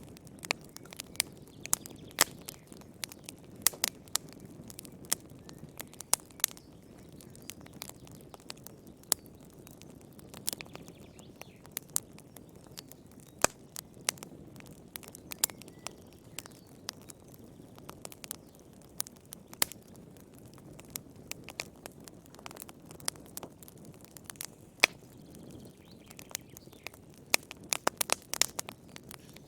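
Wood fire crackling in a fireplace: irregular sharp pops and snaps, several a second at times and thickening into a quick cluster near the end, over a steady low rush of the flames.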